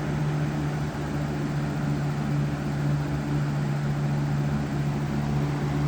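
Holmes HABF20 box fan running steadily on medium speed: an even rush of air with a steady motor hum. The owner notes that it has a bit of bearing noise.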